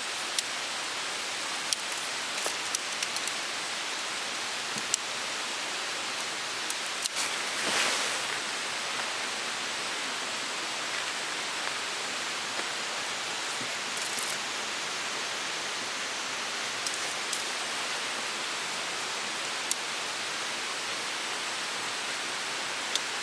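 Mountain river flowing steadily over rocks, a continuous rush of water, with a few short ticks and knocks here and there.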